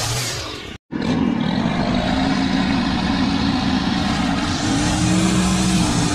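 Small petrol engine of yard equipment running steadily, its pitch shifting slightly. It breaks off for a moment just under a second in, then carries on.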